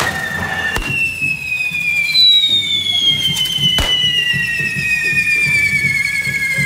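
Correfoc carretilles, spark-spraying fireworks on the devils' forks, whistling in several long, slowly falling tones at once, with a new whistle starting about two seconds in. Two sharp bangs go off, about a second in and again near four seconds.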